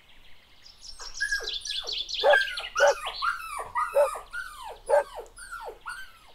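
Puppies yelping: a quick run of short yelps, each sliding down in pitch, about two to three a second, starting about a second in.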